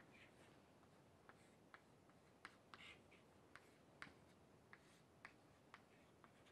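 Faint chalk tapping and scratching on a chalkboard as a formula is written: short, irregularly spaced clicks with a slightly longer scratch nearly three seconds in.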